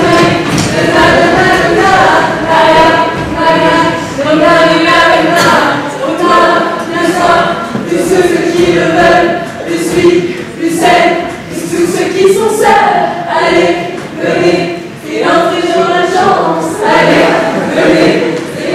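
A mixed group of young men and women singing together in chorus, in phrases of held notes.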